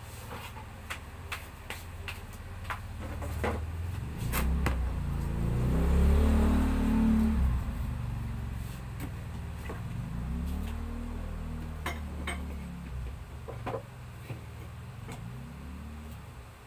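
A motor vehicle's engine drone that rises in pitch, swells loudest about six to seven seconds in and fades away, like a vehicle passing, with a second smaller swell later. Scattered light clicks and knocks sound throughout.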